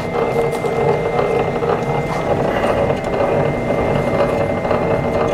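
BS-015M electric wire stripping machine running, its motor and geared feed rollers turning steadily while a 14-gauge wire is run through. It makes a continuous mechanical hum with a thin, steady high whine.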